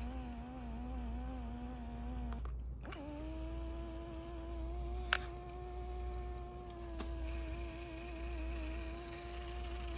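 Tape playback from a Panasonic RQ-SX56 cassette Walkman: a held tone with overtones, wavering slightly in pitch, breaks off and gives way to a higher held tone about three seconds in, over a low steady hum. Two faint clicks come about five and seven seconds in.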